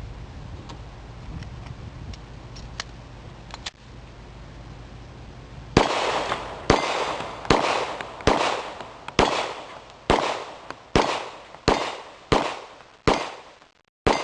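A steady low rumble for the first few seconds, then a Glock 17 9mm pistol firing PMC 115-grain full metal jacket rounds: about eleven sharp shots at an even pace of a little more than one a second, each trailing off in an echo.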